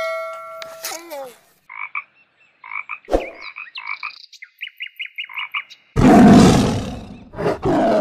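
A chime rings and fades in the first second. A frog then calls in short chirps repeated for about four seconds, and about six seconds in a tiger growls loudly.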